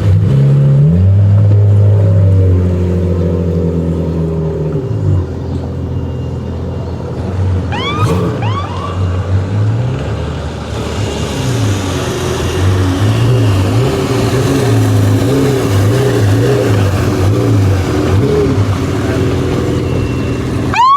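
Boat engine running at low speed, steady for the first few seconds and then rising and falling in pitch again and again as the throttle is worked. A few short rising chirps come about eight seconds in.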